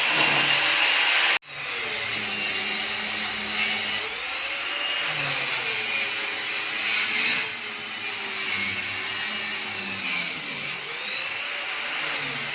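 A power tool motor runs with a steady noise, its pitch drifting slowly up and down. The sound breaks off abruptly about a second and a half in, then resumes.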